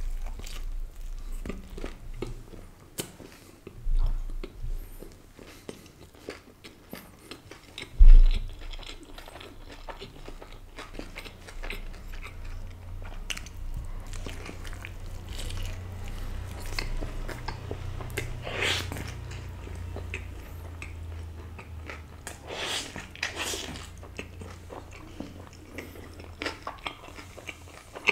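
Close-miked eating: biting into a Subway turkey breast and chicken slices wrap and chewing it, with many small wet clicks from the mouth throughout. A heavy low thump about eight seconds in is the loudest moment.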